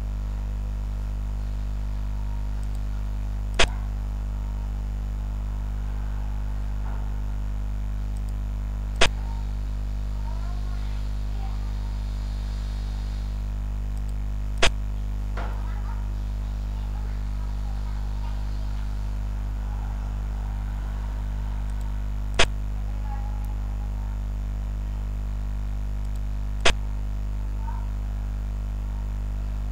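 Steady low electrical hum with five sharp, evenly loud clicks spaced several seconds apart: the piece-placement sound of the xiangqi board software as each move is played.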